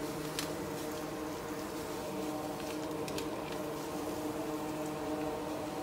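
Steady machine hum with a few faint ticks, alongside a large iron pot of meat stew simmering as salt is poured into it.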